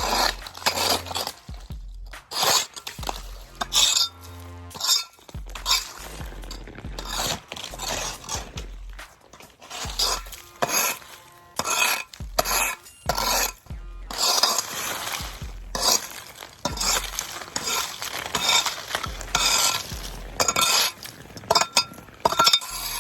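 A forged scraper's metal blade scraping and chipping compacted ice and snow off pavement in repeated short strokes, about one a second.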